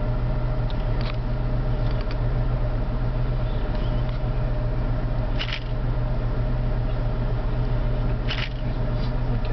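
Vehicle engine idling with a steady low hum, heard from inside the car, with a few brief rustles about a second in, five and a half seconds in and eight seconds in.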